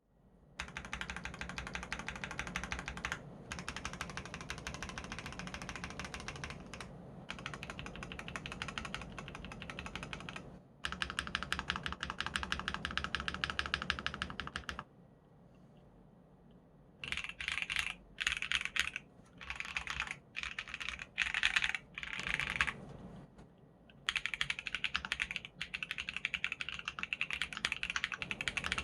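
Mechanical keyboard with factory-lubed Akko Cream Yellow V3 linear switches and a PC plate (Akko MonsGeek M1W) being typed on quickly and steadily. Typing stops for a couple of seconds about halfway, comes back in short bursts of keystrokes, then runs steadily again near the end.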